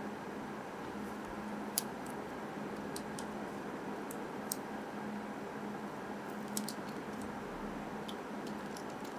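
Fingers handling and pressing on a plastic Mini 4WD body while applying a sticker: a few faint, sharp plastic clicks and taps, scattered irregularly, over a steady hiss with a low hum.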